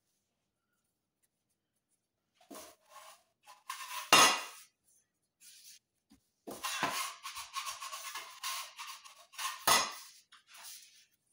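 Aluminium foil on the counter crinkling and rustling under plastic-gloved hands rolling up dough, in irregular bursts after a quiet start. Two louder thumps come about four seconds in and near the end.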